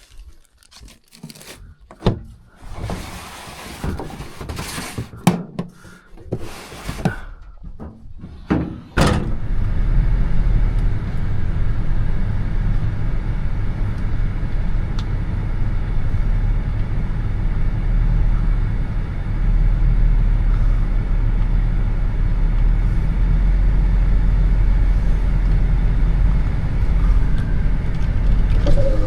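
Irregular rustling, crinkling and knocks of handling for about nine seconds. Then a truck's engine and road noise start up suddenly and run on as a steady low rumble while it drives.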